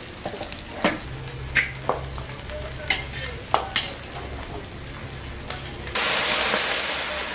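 Fish pieces being set into a hot wok of frying vegetables, with scattered clinks and scrapes of the spatula and bowl over faint frying. About six seconds in, liquid poured from a bowl hits the hot wok and sizzles loudly in a steady hiss of steam that slowly fades.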